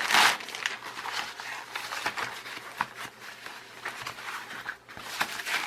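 Packing padding being rustled and pulled out of a parcel, with irregular crinkling and crackling and a loud rustle right at the start.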